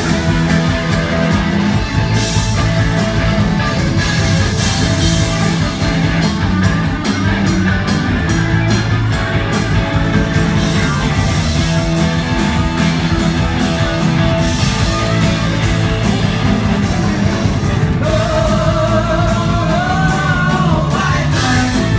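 Live rock band playing loudly, with electric guitars, keyboards and drums; a woman's sung vocal line comes in near the end.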